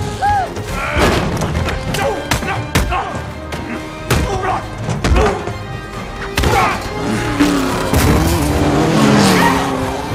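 Action-film car-chase soundtrack: car engines and squealing tyres over a music score, with sharp hits and thuds from a fistfight mixed in.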